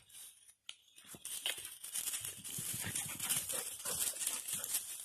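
Dogs running and scuffling through dry leaf litter: a crunching, rustling crackle that starts about a second in.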